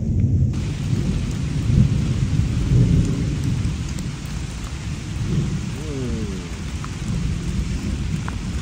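Thunder rolling continuously as a thunderstorm closes in, a heavy low rumble, with a steady hiss of rain coming in about half a second in.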